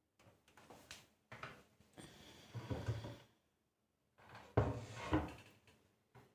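Kitchen cupboard doors being handled and shut: a few light clicks and rustles, then a thud as a door closes about four and a half seconds in.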